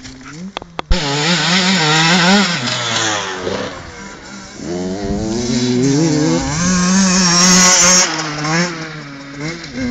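Two-stroke enduro dirt bike ridden hard, its engine revving up and down through the gears. It gets loud about a second in, eases briefly in the middle, is loud again, then drops away near the end.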